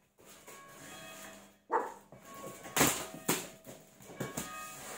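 A dog barking several times in short, sharp barks, with bells ringing faintly and steadily behind it.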